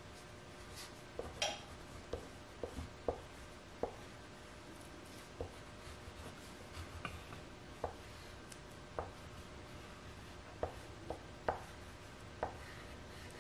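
Oil pastel and then fingertips working over drawing paper on a tabletop: faint rubbing with about a dozen small taps and clicks at irregular intervals.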